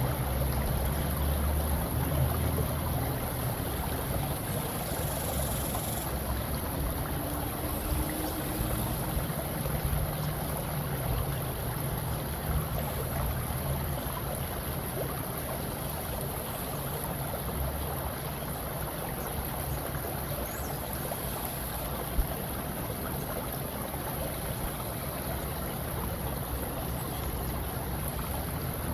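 Steady rushing water, like a flowing stream, used as a background sound bed.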